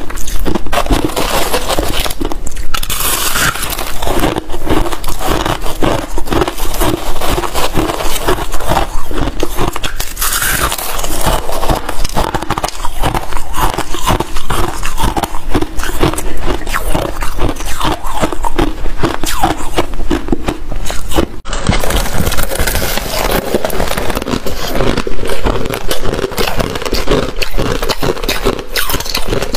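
Freezer frost and crushed ice being bitten and chewed close to a clip-on microphone: a dense, continuous crunching and crackling, broken only by a brief gap about two-thirds of the way through.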